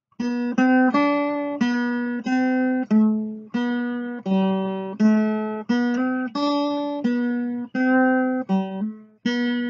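Acoustic guitar music: a melody of plucked notes, one about every half second, each ringing and fading before the next.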